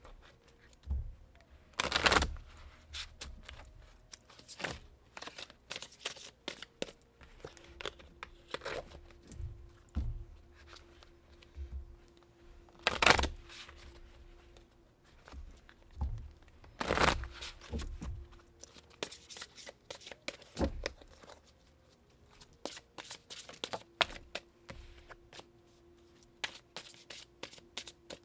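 Deck of oracle cards being shuffled by hand: a run of irregular rustles and soft clicks of card stock, with three louder sharp bursts about two, thirteen and seventeen seconds in.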